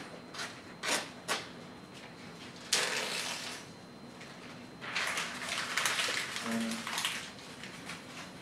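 A pen scratching on paper in a few quick strokes, then paper rustling, and about halfway through a longer spell of a sheet being handled and crumpled.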